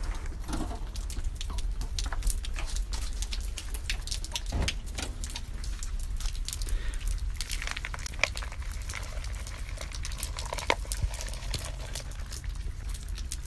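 Rain pattering and dripping, many irregular ticks, over a steady low rumble.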